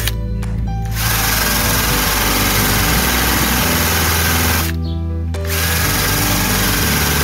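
Cordless rotary tool spinning an abrasive flap wheel against plastic bed liner, a steady high whir and scrub that drops out twice, briefly in the first second and again around the five-second mark. Background music with a beat plays underneath throughout.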